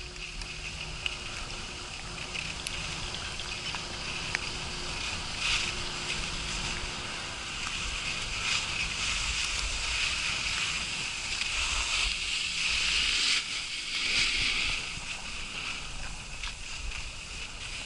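Skis sliding and hissing over snow, growing louder about halfway through as the skier picks up speed, with a low wind rumble on the microphone.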